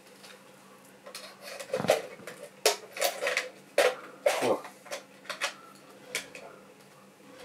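Irregular metallic clicks, taps and scrapes of a screwdriver working against small metal parts as the clockwork drive mechanism of an AKS-1r aerial movie camera is pried loose from its housing, with a faint steady hum underneath.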